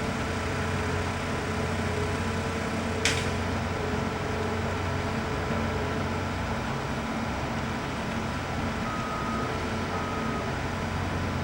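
Heavy diesel construction machinery running steadily, with a brief sharp hiss about three seconds in and a reversing alarm beeping intermittently near the end.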